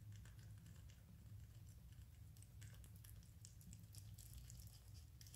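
A rabbit eating at a bowl of greens: its chewing comes as a quick, irregular run of faint, crisp clicks over a low steady hum.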